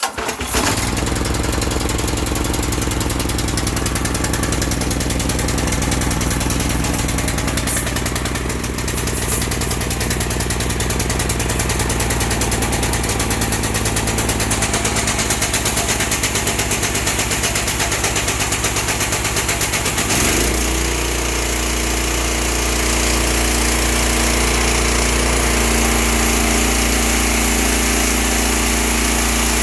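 Petrol pressure washer's small engine catching on the pull cord and running steadily. About twenty seconds in its note changes and settles into a smoother, even run.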